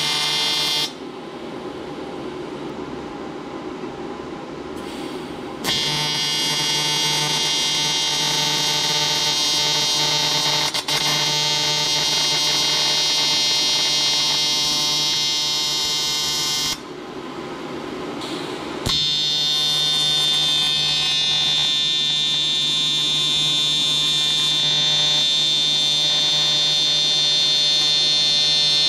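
AC TIG welding arc buzzing steadily while fusing an aluminium sensor fitting into an aluminium 2JZ-GE cylinder head. The buzz falls back twice, from about a second in to about six seconds, and again for about two seconds past the middle, then comes back up. The thick head is hard to bring to a puddle on a machine run off 110 V, and the weld shows porosity.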